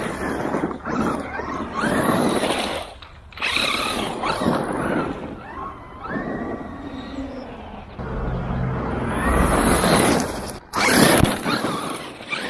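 Traxxas E-Revo 2 electric RC monster truck driving hard over gravel and grass. Its motor whine rises and falls repeatedly with the throttle over the noise of the tyres on the gravel, with a loud surge near the end.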